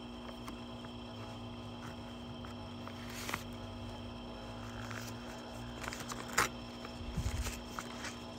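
Crackles of paper being unfolded and handled, a few sharp crinkles with the loudest about six seconds in, over a faint steady hum.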